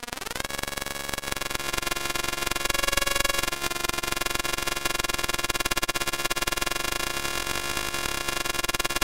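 Synthesized electric arc sound from the AudioElec synthesizer: a continuous buzzing, crackling electrical drone. Its pitch slides up about a third of a second in and its tone shifts around three seconds in, as the arc sustain controls are adjusted.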